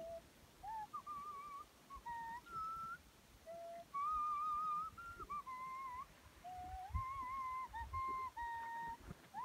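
A slow melody of held, whistle-like notes in a single pure tone, sliding from one pitch to the next with a slight waver on the longer notes.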